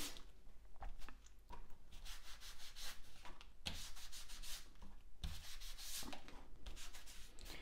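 Foam ink sponge rubbed over embossed cardstock: soft, scratchy rubbing in short, irregular strokes as ink is worked into the raised texture.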